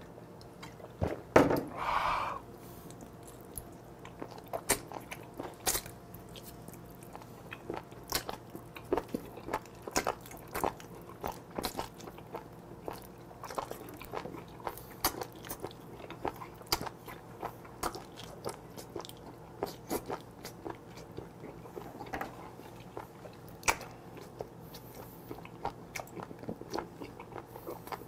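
Close-miked chewing of octopus: wet smacks and mouth clicks at irregular intervals, with a louder mouth sound about one to two seconds in.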